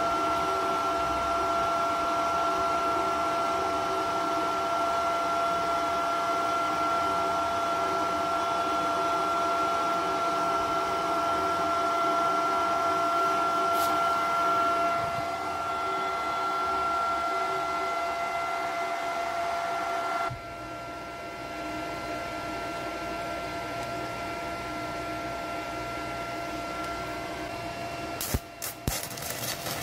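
Topshak ZX7-250 Mini inverter arc welder switched on and idling, its cooling fan humming with a steady electronic whine at two pitches; the whine cuts out about twenty seconds in, leaving a quieter hum. Near the end come a few sharp crackling snaps as the electrode is touched to the work to strike an arc.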